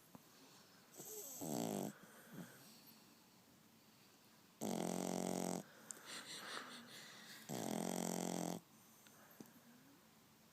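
French bulldog puppy snoring: three snores of about a second each, roughly three seconds apart, with faint breathing between.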